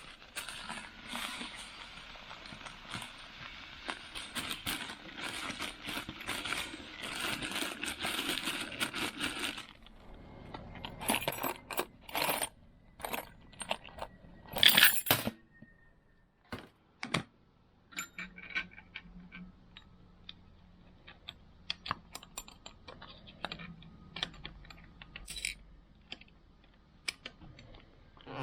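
A handful of metal key blanks rattling and clinking as they are loaded into a rotary tumbler's barrel: a dense, continuous rattle for about the first ten seconds, then scattered single clinks and clanks.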